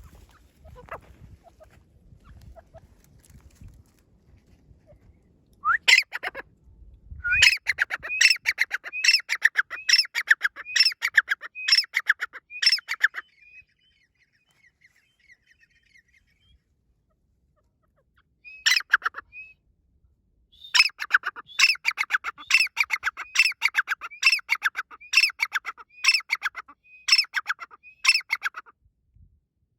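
Grey francolin (teetar) calling: loud, sharp notes repeated about twice a second in two long bouts, with a short pause and a lone note between them.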